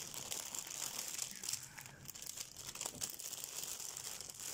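Small plastic zip bags of diamond-painting drills crinkling as they are handled, with many small ticks and clicks throughout.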